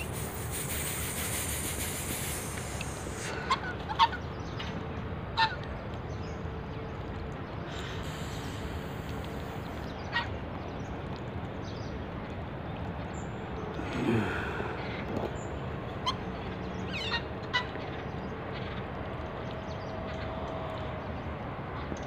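Domestic geese giving short honks at irregular intervals, a few at a time, over a steady background hiss.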